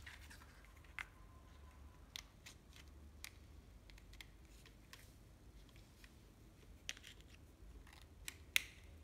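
Sparse, irregular light clicks and taps as a Ryobi 12V cordless drill-driver is handled and its parts worked by hand, over a faint low hum.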